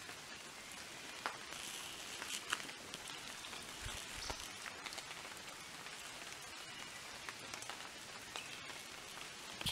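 Shallow creek trickling steadily over stones, with faint scattered drips and ticks; a couple of soft low thumps about four seconds in.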